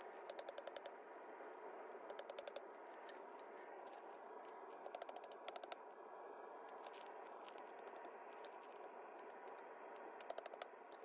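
Faint, short runs of quick light hammer taps on the anvil horn as a hot steel ring is rounded, heard about six times over a steady faint background noise.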